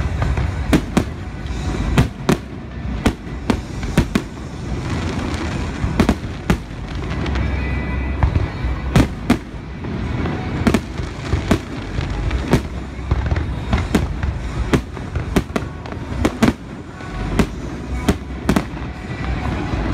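Aerial firework shells bursting in a fast, irregular string of sharp bangs, a few each second, over a steady low rumble from the ongoing barrage.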